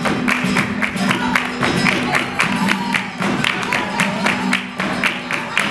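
Flamenco music: acoustic flamenco guitars strumming, under a quick, steady rhythm of sharp hand-claps (palmas).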